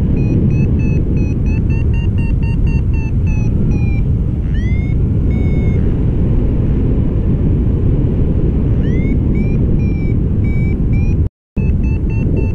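Paragliding variometer beeping its climb tone, a quick run of short beeps whose pitch steps up and down with the rate of climb, the sign of rising air. Under it, loud steady wind noise buffets the microphone. The beeping stops for a few seconds midway and resumes with a few rising chirps, and the sound drops out completely for a moment near the end.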